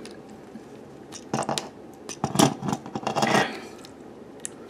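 Hard plastic parts of a Transformers Animated Ratchet action figure clicking and scraping as a weapon accessory is worked into its hand, in a few short clusters of clicks about a second apart.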